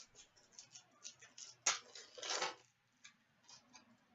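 A trading card pack being opened and its cards handled: soft crackles and light clicks, with a sharper crackle a little under two seconds in followed by a longer rustle.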